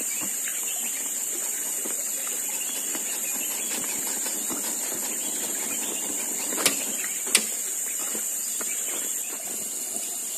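A steady, high-pitched insect chorus, with light crackling from a wood cooking fire and two sharp pops about two-thirds of the way through.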